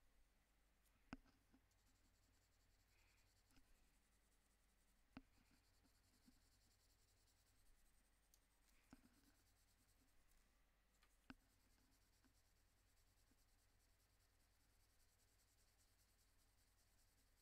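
Faint scratching of a Prismacolor Premier coloured pencil worked in light strokes over toned clay paper, with four short soft clicks spread through the first two-thirds.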